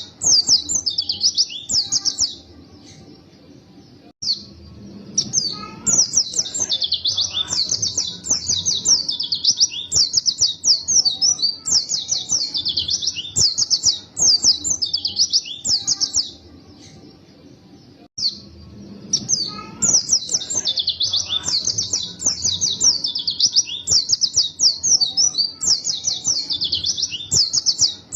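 White-eye (pleci) singing a fast, twittering song of rapid high chirps in long unbroken runs, with two pauses of about two seconds, one a couple of seconds in and one just past the middle.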